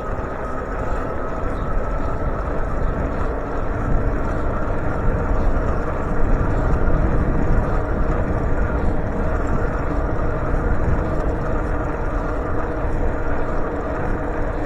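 Steady wind and road noise from riding a bicycle along a busy road, with car traffic going by.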